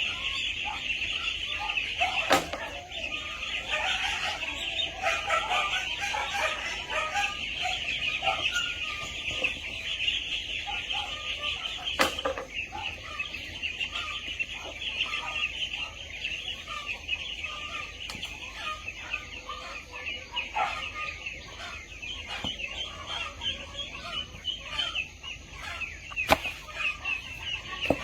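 A flock of chickens clucking, with a dense high-pitched chirring that never lets up behind them. Three sharp clicks stand out: near the start, in the middle and near the end.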